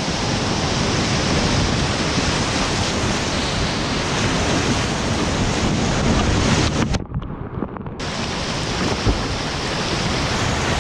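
Class IV–V whitewater rapids rushing in a steep gorge, a loud steady roar of water. About seven seconds in the sound is briefly muffled for roughly a second before the full rush returns.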